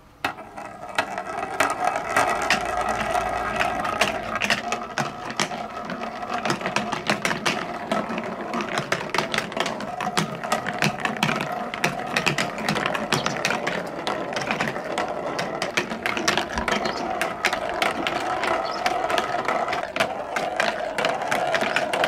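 Several plastic balls rolling down plastic rain-gutter chutes and TrixTrack curved tracks. The rolling is a continuous rumble, full of rapid clicks and clatters as the balls knock against each other and the track. It starts suddenly as the balls are let go.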